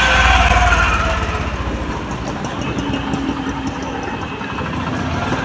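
A motor vehicle's engine idling in street traffic, with a fast low knocking pulse that is strongest at first and fades after about a second or two.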